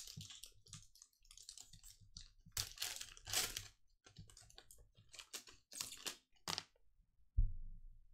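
A foil trading-card pack (2021 Panini Contenders football) being crinkled and torn open by hand: a run of short crackling rustles, the loudest about three seconds in. A single dull thump near the end.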